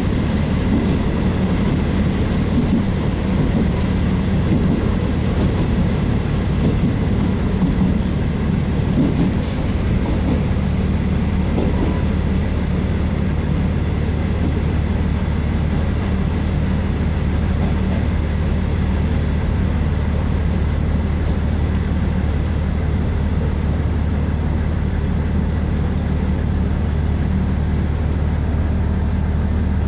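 Interior sound of a JR East KiHa 40 series diesel railcar, its diesel engine running with a steady low hum; during the first ten seconds or so the sound is more uneven, then it settles into an even, unchanging drone.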